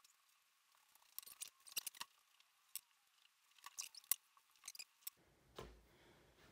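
Faint rustling and light clicks of a cloth rubbing wood finish onto small turned walnut pieces, then a soft knock about five and a half seconds in as a piece is set down on the table.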